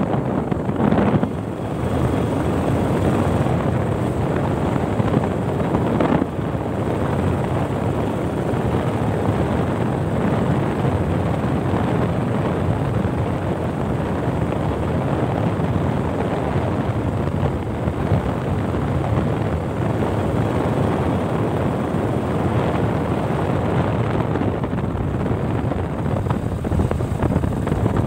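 Motorcycle engine running steadily while being ridden along a road, mixed with wind rushing over the microphone. The sound dips briefly twice, about a second in and about six seconds in.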